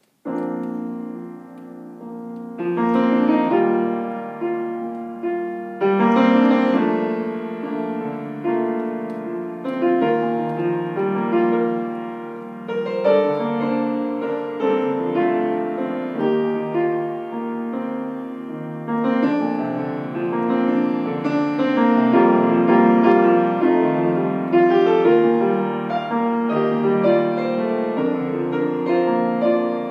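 Grand piano played solo: an improvised piece of chords and melody, the first chord struck just after the start and fresh chords sounding every few seconds.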